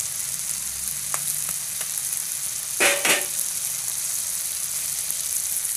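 Hot oil sizzling steadily in a pan of frying potatoes and tomatoes as raw eggs are added, with a couple of light ticks and a short, louder burst of sizzle just before three seconds in.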